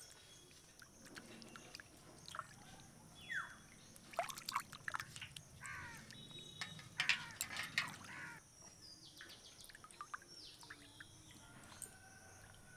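Water pouring and splashing as a freshly scaled hilsa fish is rinsed by hand, in irregular splashes that are loudest from about four to eight seconds in.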